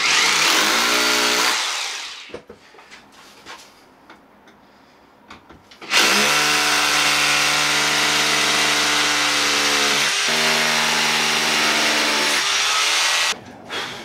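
Power drill boring into a brick wall. A first run of about a second and a half winds down, then about seven seconds of steady drilling with a brief dip near the middle stops suddenly.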